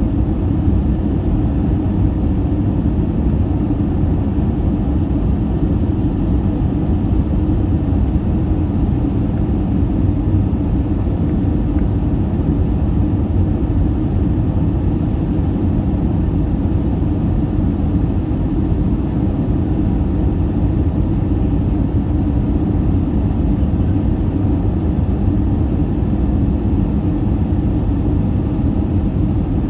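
Airbus A319 cabin noise heard from a seat over the wing on low final approach: engine and airflow noise making a steady, even low rumble, with a faint thin high tone running through it.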